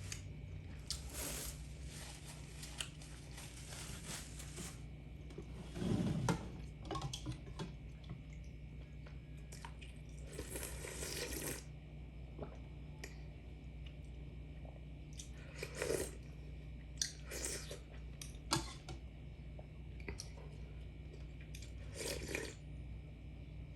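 A person eating close to the microphone: bursts of crunching and chewing, on and off, over a steady low hum.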